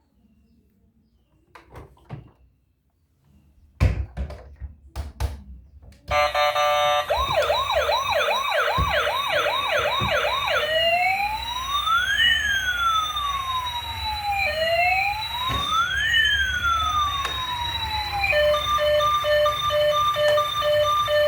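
A few clicks and knocks of a plastic toy being handled, then about six seconds in a toy emergency vehicle's electronic siren switches on. It gives a fast yelping warble, then slow rising-and-falling wails, then a pulsing beep pattern near the end.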